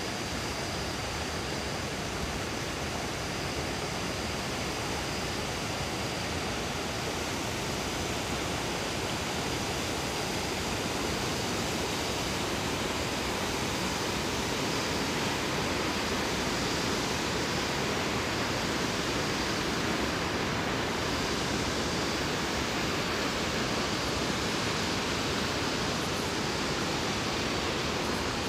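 Jaguaribe River rushing fast through flooded brush below an overflowing dam spillway: a steady, unbroken rush of water that grows slightly louder after the middle.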